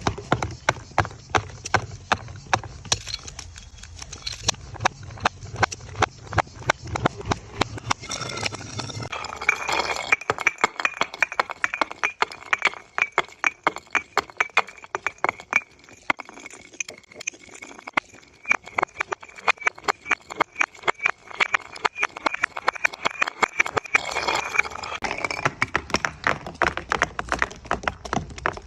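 Glass bottles breaking and clinking in a rapid, unbroken run of sharp cracks, several a second. A low hum runs under the first third and then stops, and a steady high ringing tone runs through the middle.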